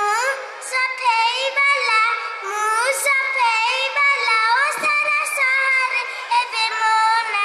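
A young child singing in a high voice, the pitch sliding between held notes.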